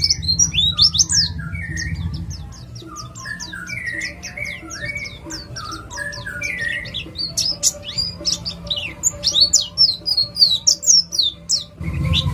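Pleci (white-eye) singing a fast, continuous song of high chirps and quick trills, with lower warbled phrases mixed in. A low rumble sits under it for the first two seconds and again near the end.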